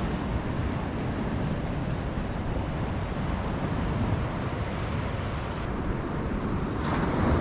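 Steady wind rumbling on the microphone over the wash of ocean surf breaking on a beach.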